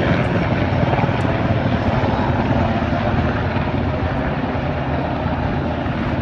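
Loud, steady aircraft engine noise, as from a plane or helicopter flying low overhead.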